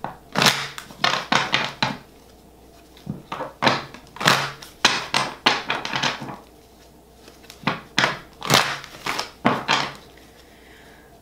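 A deck of tarot cards being handled and shuffled on a table: three bouts of quick, sharp card snaps and slaps.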